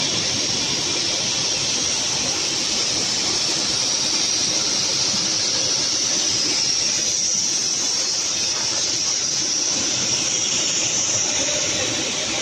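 Industrial microwave drying machine running: a steady, loud hiss over a low rumble.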